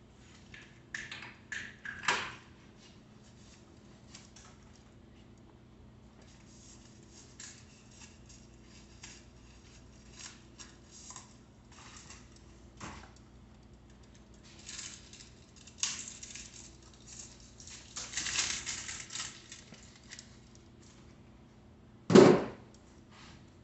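Scattered light metallic clicks and rattles of hand tools and bicycle handlebar parts being handled during assembly, with a denser clatter about two thirds of the way through. Near the end comes one loud, sharp thump.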